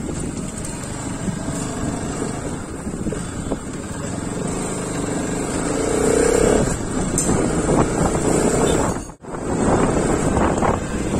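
Motorcycle engine running under way, with wind rushing over the microphone. The sound drops out briefly about nine seconds in.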